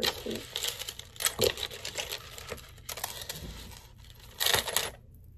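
Rustling and small clinks as silver jewelry is picked up and put on, with a louder rustle about four and a half seconds in.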